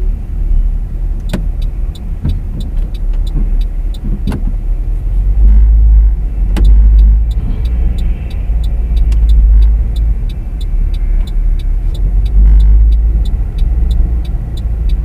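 Car cabin while driving slowly: a low engine and road rumble that swells and eases, with a few knocks early on. From about seven seconds, a light ticking about three times a second.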